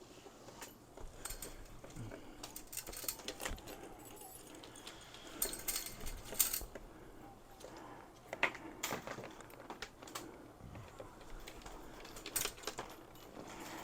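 Light metal clinking and rattling in irregular bursts, with scattered clicks, as an LED shop light and its hanging chain are handled and turned around. The loudest clatter comes around the middle.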